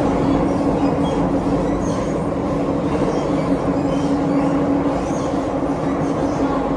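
Shanghai Metro 13A01 train running between stations: a steady rumble of wheels on rail with a constant hum.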